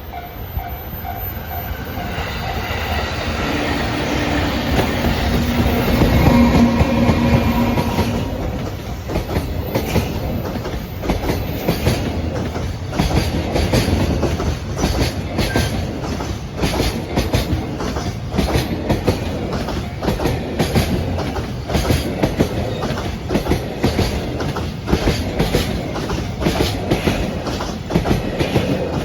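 A JR Freight EF210-100 series electric locomotive passes, loudest about six to seven seconds in, with steady tones over the rumble. A long train of Koki container wagons follows, their wheels clicking over the rail joints in a steady rhythm.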